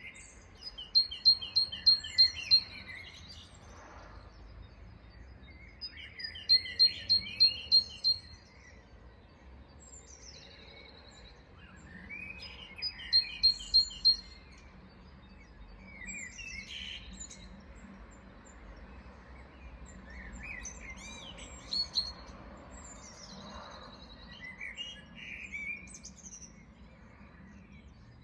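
Several songbirds chirping and calling. One bird sings a quick run of about six loud, sharp, high notes three times, roughly every six seconds. Other birds give scattered chirps in between and in the second half.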